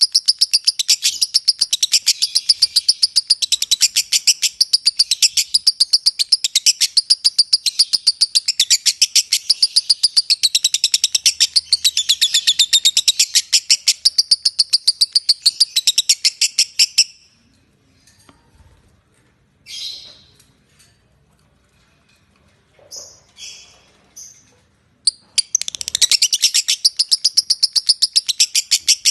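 Lovebird singing 'ngekek', a long unbroken run of rapid, shrill chirps. It breaks off about 17 seconds in, gives a few lone chirps, then starts again near the end.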